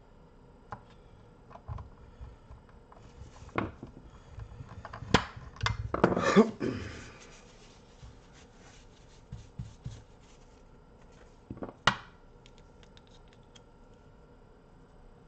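Screwdriver and small metal parts being handled on a circuit board: scattered light clicks and clinks. A louder run of clatter and rubbing comes about a third of the way in, and one sharp click about three quarters of the way through.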